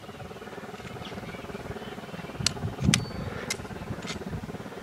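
Low, uneven rumble of wind buffeting the camera microphone, with a few sharp clicks and a thump about halfway through.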